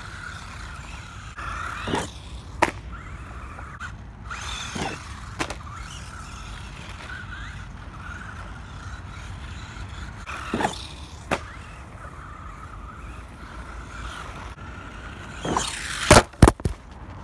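ECX Torment 1/18 RC truck's electric motor whining steadily as the truck drives around on dirt, swelling in several surges with tyre scuffs and a few sharp clicks. Two loud knocks near the end.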